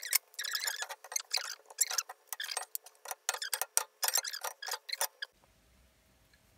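Wooden spoon scraping and tapping in a frying pan, stirring and scooping out a potato-and-egg scramble: a quick, uneven run of scrapes that stops about five seconds in.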